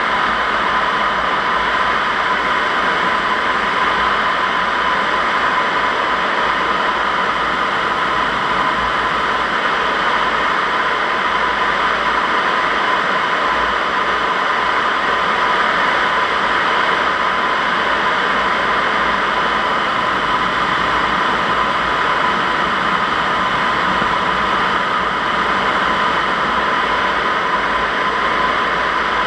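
Steady rush of airflow over a camera mounted on a Zugvogel 3a glider in gliding flight, an even hiss with a constant whistle-like tone running through it.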